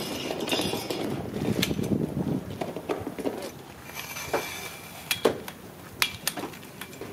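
Pop-up canopy tent being handled: a dense rustling and scraping for the first couple of seconds, then a handful of sharp metal clicks and knocks from its frame as a leg is adjusted.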